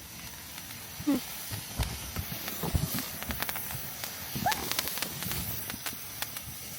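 Backyard consumer fireworks crackling with scattered sharp pops and a few dull thumps, with a couple of short voice exclamations.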